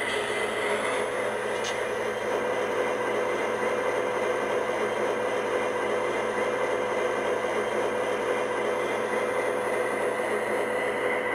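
MTH O-scale diesel locomotive model's onboard sound system playing a steady diesel engine idle, with an even hum and hiss and no change in pitch.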